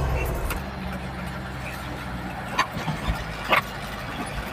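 Truck engine running steadily, heard from inside the cab, with two short sharp clicks or rattles about two and a half and three and a half seconds in.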